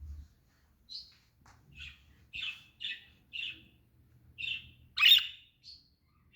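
Pet budgerigars chirping: a string of about eight short chirps, with the loudest and harshest call about five seconds in.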